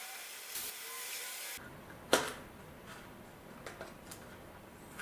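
A steady hiss that cuts off abruptly about a second and a half in. Then one sharp click and a few lighter clicks as the white plastic body shell of a model car kit is handled and fitted.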